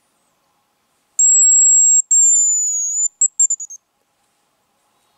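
Hazel grouse decoy whistle blown to imitate the bird's call: a very high, thin whistle held about a second, a second note that slides slightly down, then a quick run of about five short notes.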